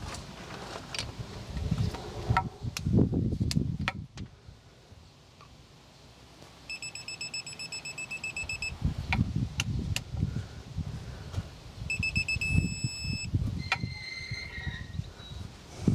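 Digital torque wrench beeping in rapid high pulses as a driveshaft U-joint bolt is pulled up, twice; the second time the beeps run into a steady solid tone, the signal that the set torque of 125 ft-lb is reached. A few sharp clicks come between pulls.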